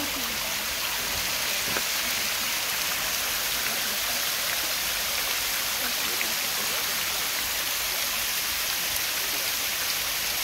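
Waterfall running steadily, an even hiss of falling water.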